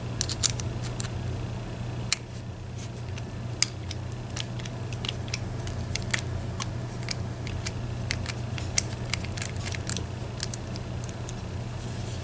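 Light, irregular clicks and taps of small metal lock parts and tools being handled, over a steady low hum.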